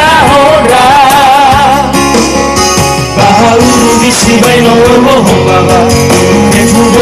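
Live music over a PA system: a male vocal trio singing a Nias song, with vibrato, over electronic keyboard accompaniment. There is a short instrumental gap about two seconds in, then the voices come back with a long held note.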